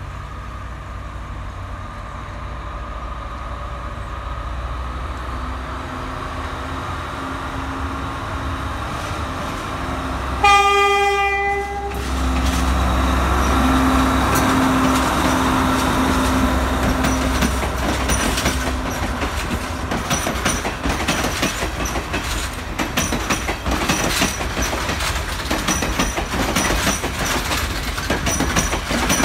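Class S9 diesel multiple unit approaching with a steady low engine drone that grows louder, sounding one horn blast of about a second and a half about ten seconds in. It then runs close past, its wheels clicking rapidly over rail joints and points.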